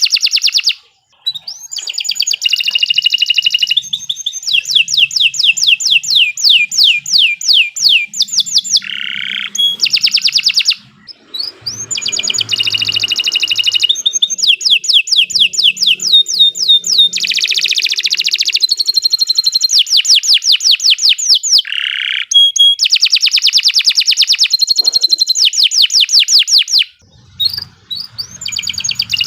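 Domestic canary singing a long, loud song of rapid repeated trills, one phrase running into the next, with brief pauses about a second in, about a third of the way through, and shortly before the end.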